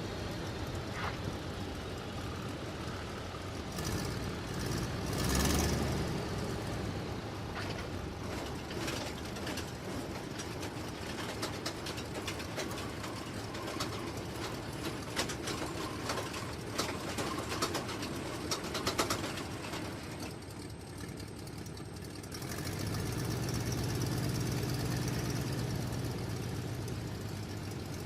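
Stearman biplane's radial engine running at low power, heard from the cockpit, with many clicks and rattles over it. About three-quarters of the way through, the engine picks up and runs louder and deeper.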